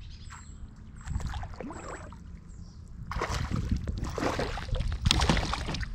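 A hooked perch splashing and thrashing at the water's surface beside the kayak as it is brought to the landing net. The splashing grows louder about three seconds in, with water sloshing against the hull.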